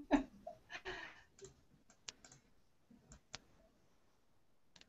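Faint laughter fading in the first second, then a few faint, scattered clicks of a computer keyboard heard over a video-call connection.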